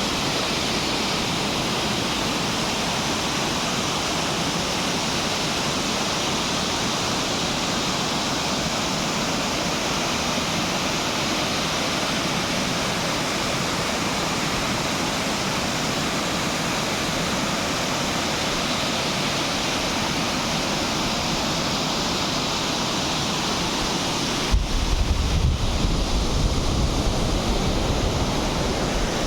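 Waterfall rushing steadily. Near the end a low, uneven rumble joins it.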